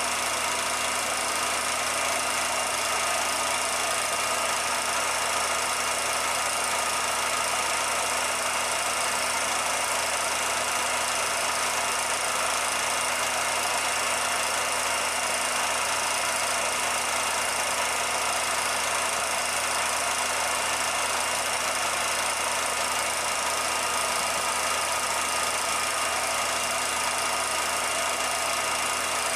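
Steady machine-like whirring with a constant hum and hiss that never changes; no sound of the pottery work itself.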